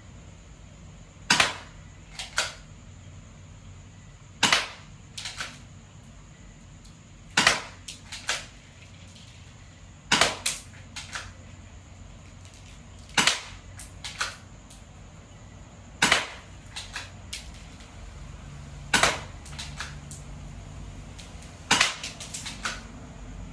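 Pistol fired one round at a time, a sharp crack about every three seconds, eight shots in all, each followed within a second by two or three fainter clicks.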